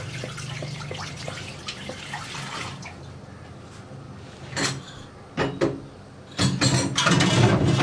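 A wooden spatula stirs milk payasam in a large aluminium pot, with liquid swishing and small scrapes and clicks. A sharp knock comes about halfway through, then two more, and a louder, noisier clatter near the end.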